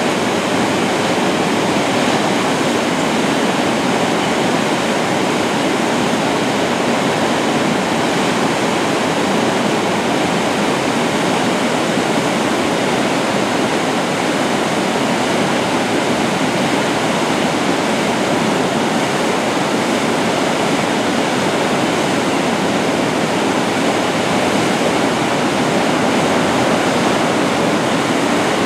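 Brown floodwater of the Finley River pouring over the mill dam and rushing past: a loud, steady, unbroken rush of churning water.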